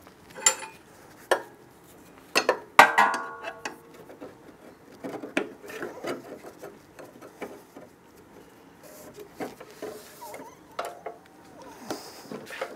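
Steel tyre lever clinking and knocking against a bandsaw wheel as a rubber tyre is levered over its rim, in irregular clicks and rubs. One sharp clank with a brief metallic ring about three seconds in is the loudest.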